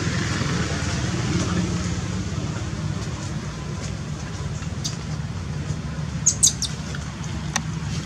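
Steady low outdoor rumble, with a quick cluster of short, high-pitched chirps about six seconds in and a few faint clicks.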